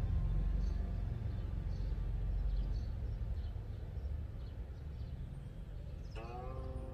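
Steady low outdoor rumble that slowly fades, with faint, scattered high chirps. About six seconds in, a melodic music phrase of held, stepping notes begins.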